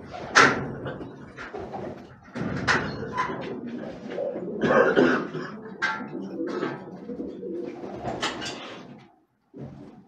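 Domestic pigeons cooing, with several sharp knocks or claps scattered among the calls.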